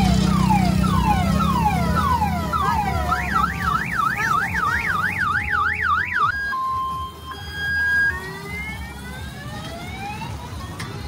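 Electronic siren-style alarm tones cycling through a sequence: falling whoops about twice a second, then a fast up-and-down warble about three times a second, then a few steady beeps, then rising whoops near the end. A low rumble runs under the first few seconds.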